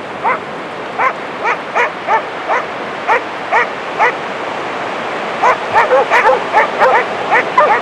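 Huntaway dog barking over and over in short, sharp barks, about one or two a second at first, then in a quicker run from about five seconds in. A steady rush of surf lies underneath.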